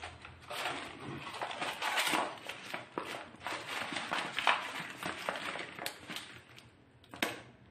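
Plastic carrier bag crinkling and rustling as hands rummage through the vegetables inside it, in irregular bursts with a sharper crackle near the end.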